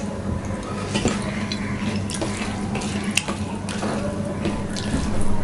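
Close-up eating sounds of a man eating rice and vegetable curry by hand: wet chewing and mouth sounds, with scattered small clicks as his fingers mix rice on a steel plate, over a steady hiss.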